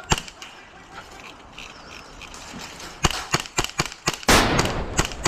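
Airsoft guns firing: a single shot at the start, then a rapid string of shots about three seconds in, followed by a loud rushing burst of noise lasting under a second.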